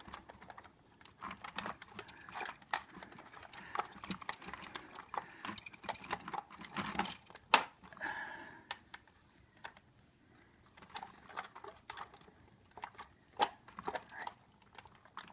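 Irregular plastic clicks and taps from a Bruder toy backhoe loader and its operator figure being handled in the cab, with one sharper click about seven and a half seconds in.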